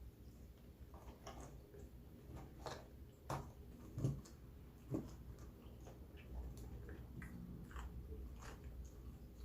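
Close-up eating sounds: a person chewing, with many small wet clicks and mouth smacks and three louder smacks or crunches in the middle.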